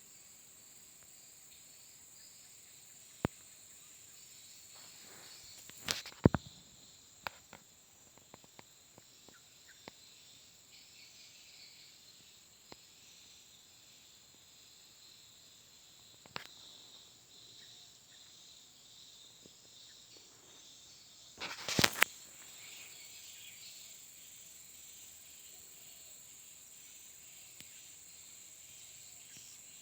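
Swiftlets inside a swiftlet house with the lure-call speakers switched off: a steady faint high chirring with scattered sharp clicks. The clicks cluster loudest about six seconds in and again around twenty-two seconds.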